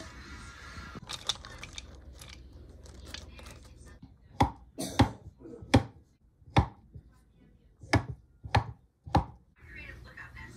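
A knife chopping on a cutting board: a few light taps, then about eight sharp, slow, uneven chops.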